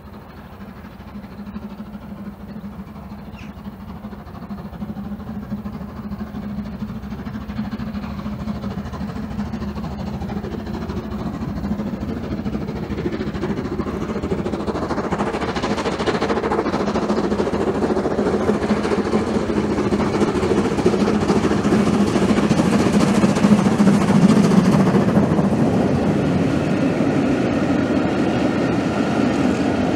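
LMS Jubilee class 4-6-0 steam locomotive 45596 Bahamas approaching at speed under steam, growing steadily louder and loudest about three-quarters of the way through as it passes. Its coaches then roll past on the rails.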